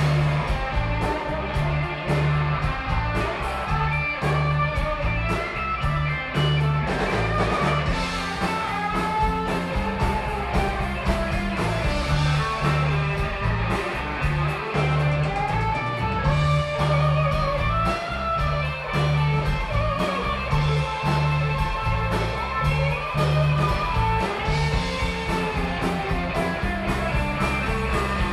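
Blues-rock band playing live. A Stratocaster-style electric guitar plays a lead line full of bent and wavering notes over steady bass guitar and drums.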